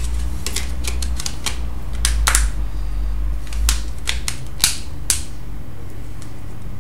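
A dozen or so sharp plastic clicks and snaps, irregular and sometimes in quick runs, from a smartphone being handled, over a steady low hum.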